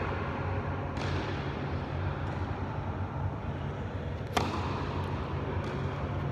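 Tennis serve: a racket strikes the ball once with a sharp crack about four seconds in, echoing briefly in the large hall, after a softer ball bounce on the court about a second in. A steady low hum runs underneath.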